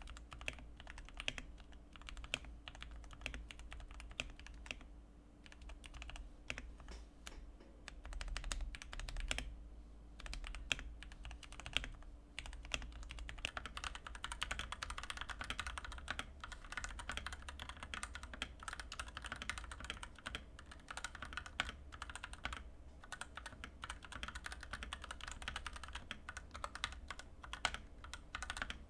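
Fast typing on a Fantech MAXFIT61 60% mechanical keyboard with Outemu Red linear switches and stock keycaps. The first half is the modded board, with lubed switches, silicone dampener, tape, O-ring mount, plate foam and band-aid stabilizer mod. About halfway through it changes to the unmodded stock board, whose keystrokes sound brighter and higher-pitched.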